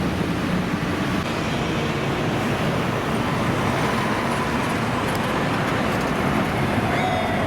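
Steady road traffic noise from passing vehicles. Near the end a police motorcycle siren starts up, its pitch gliding up and then falling.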